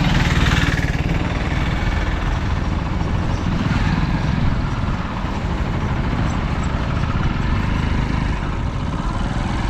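Steady road traffic and vehicle engine rumble, with a brief rush of higher hiss in the first second.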